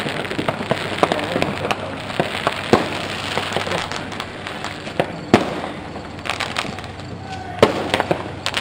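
Fireworks going off across a town: many irregular pops and bangs, some sharp and loud, over a constant background of fainter distant pops. The loudest bangs come about halfway through and again near the end.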